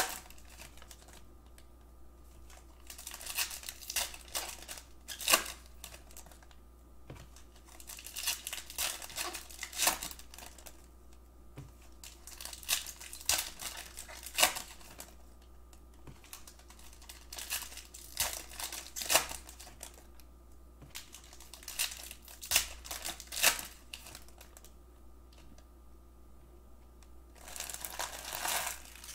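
Foil trading-card pack wrappers crinkling and tearing as packs are opened, along with cards being handled, in short crackly bursts every few seconds.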